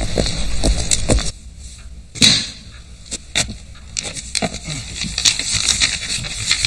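A busy clatter that cuts off about a second in, then scattered taps and one sharp knock. After that, a large rolled sheet of paper rustles and crackles as it is unrolled on a floor.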